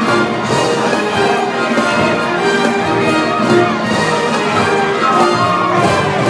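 Orchestral parade music playing loud and steady, carried by the passing light-up parade float.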